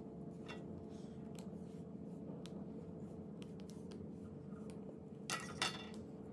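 Faint ticks and small clicks from a screwdriver and wires being worked into the screw terminals of an NMEA 2000 field connector, with two sharper clicks a third of a second apart near the end, over a steady low hum.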